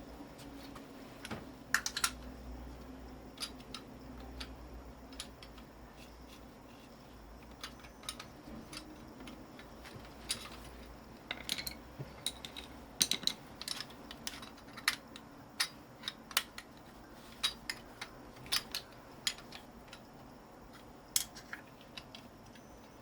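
Irregular sharp metallic clicks and snips of hand tools cutting and pulling copper winding wire out of a scrap electric motor, coming in small clusters a second or so apart.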